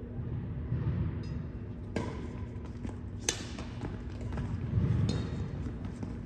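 Badminton rally: rackets striking the shuttlecock in a few sharp cracks, the loudest about three seconds in, over the thud of players' footsteps on the wooden court.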